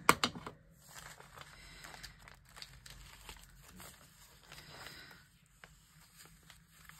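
Paper rustling and crinkling as sheets and scraps are handled on a table, with a few sharp knocks at the very start.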